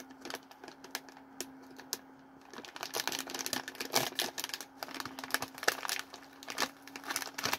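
Plastic snack bag of Goldfish crackers crinkling as it is handled and worked open, an irregular run of crackles that grows busier about two and a half seconds in. A faint steady hum lies underneath.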